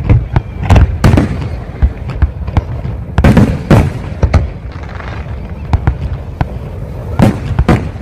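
Aerial fireworks display: many sharp bangs from bursting shells at irregular intervals over a continuous low rumble.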